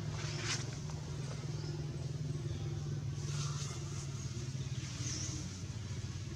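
A motor vehicle engine idling nearby: a low, steady, even hum.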